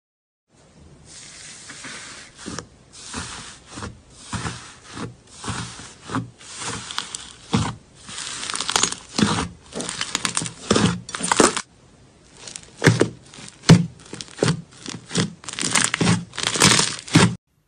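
Thick green slime being kneaded, squeezed and poked by hand, giving sticky crackling and tearing sounds in short bursts, about one or two a second. The bursts grow louder, with a short break about two-thirds of the way through.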